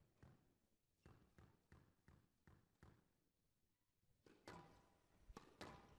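Faint knocks of a squash ball struck by rackets and hitting the glass court walls, mixed with players' footsteps, during a rally. There is a lull about three to four seconds in, then several sharper hits near the end.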